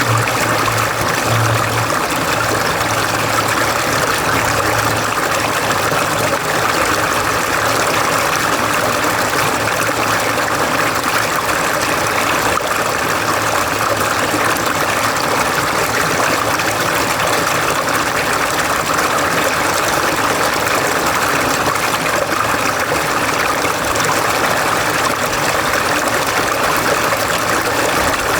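Mountain stream water flowing and splashing over rocks, a steady rushing with no pauses.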